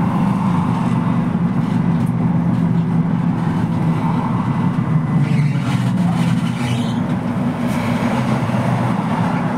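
A LAZ E301D1 trolleybus under way, heard from inside the passenger cabin: a steady low hum and rumble of the electric drive and tyres.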